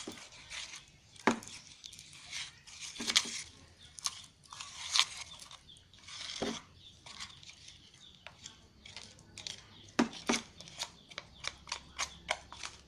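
A utensil stirring a thickening slime mixture in a bowl: irregular sticky squelching and scraping, with a few sharp clicks of the utensil against the bowl.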